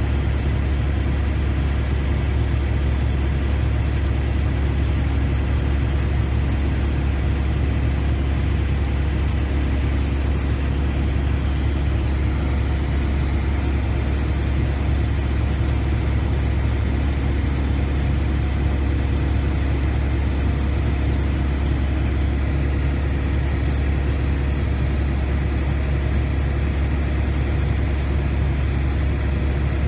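John Deere combine harvester running steadily while harvesting corn: a constant, loud engine drone with a strong low hum, unchanging throughout.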